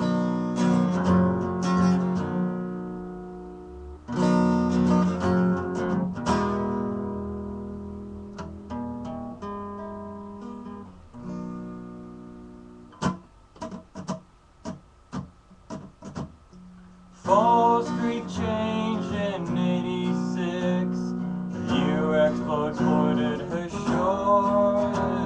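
Acoustic guitar intro: two strummed chords each left to ring and fade, then a run of short, sharp muted strokes. About 17 seconds in, steady, louder strumming starts up.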